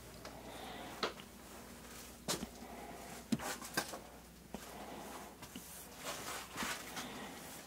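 A few separate light knocks and clicks in a small room, as of objects being bumped or handled, over a faint steady low hum.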